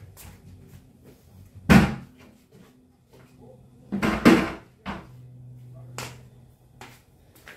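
Wooden RoadLoft plywood storage boxes knocking as they are set down and shifted on the garage floor: one heavy thud about two seconds in, a louder cluster of knocks about four seconds in, then a few lighter knocks.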